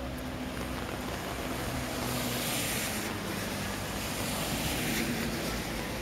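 Steady autumn rain hissing, mixed with wind noise on the microphone, with the hiss swelling for about a second, two seconds in.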